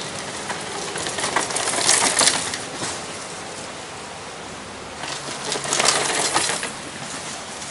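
Downhill mountain bike rattling down a rocky dirt trail, its tyres crunching over loose stones and gravel, with bursts of clatter about two seconds in and again about six seconds in as a rider passes close.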